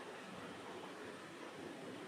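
Faint steady background hiss of room tone on the recording microphone, with no distinct events.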